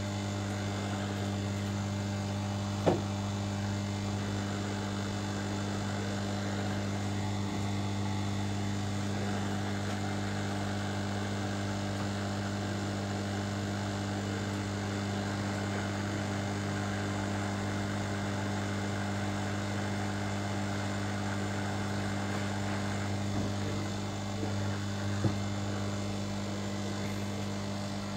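Hot-air rework station blowing steadily, a constant airflow hiss with a strong hum, as it heats the digitizer FPC connector on an iPad mini logic board. There is one sharp click about three seconds in, and a few light knocks near the end.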